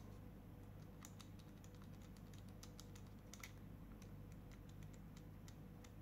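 Faint, irregular light clicks and ticks from Parkside ferrule crimping pliers being handled, the loose handle knocking in its pivot through its large free play.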